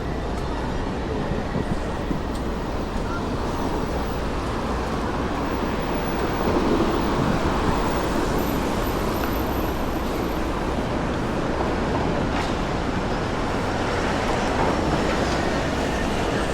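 City street traffic noise: a steady wash of passing vehicles that swells about six seconds in.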